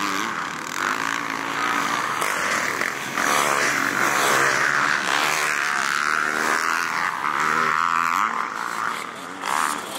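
Motocross dirt bike engines revving on the track, their pitch rising and falling again and again as the riders accelerate and shift.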